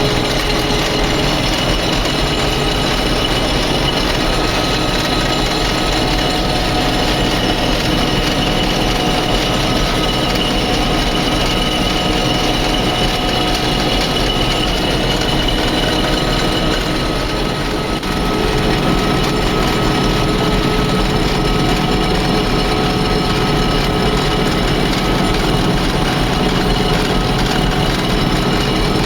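Combine harvester running steadily while harvesting wheat: a continuous loud mechanical din with several steady whining tones, dipping slightly about two-thirds of the way through.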